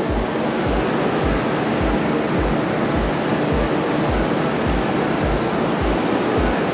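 Steady rushing water noise, typical of a shrimp pond's aerators, with a music track's low beat thudding underneath at a little under two beats a second.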